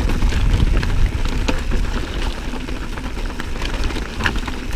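Mountain bike descending a steep dirt trail: knobby tyres rolling over dirt and rocks, with many scattered clicks and rattles of gravel and the bike, over a steady low rumble of wind on the microphone.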